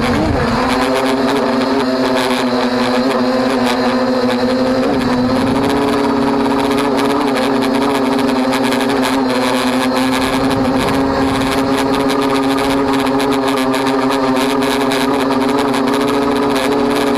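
Quadcopter drone's electric motors and propellers, heard from a camera mounted on the drone: a steady buzzing whine that rises in pitch at the start as the drone lifts off from the grass, then holds steady while it climbs.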